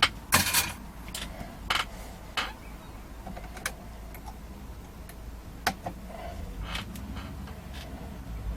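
Scattered clicks and small knocks of tools and parts being handled on a workbench, one louder clatter just after the start, over a steady low hum.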